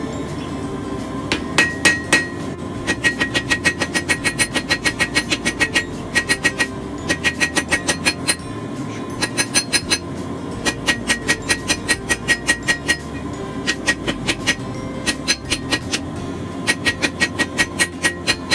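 Small hand hammer striking a red-hot Damascus billet of 1095 and 15N20 steel on an anvil, in quick runs of about four ringing blows a second with short pauses between. It is a second hammering pass over the billet to reach the spots the first pass missed. A steady roar of the gas forge's burner runs underneath.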